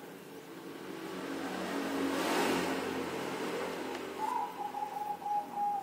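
A motor vehicle passing by, its engine growing louder to a peak about halfway through and then fading.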